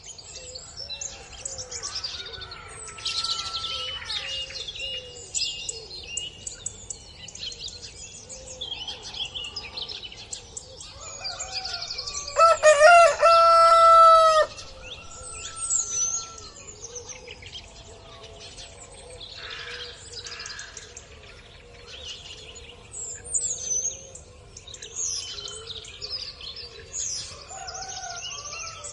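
Small birds chirping throughout, and a rooster crowing once loudly about halfway through, a single call lasting about two seconds.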